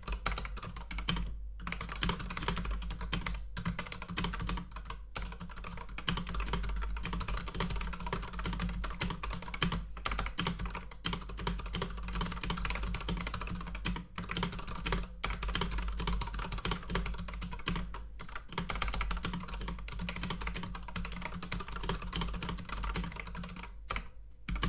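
Fast, continuous typing on a computer keyboard: a dense stream of key clicks, broken by a few short pauses.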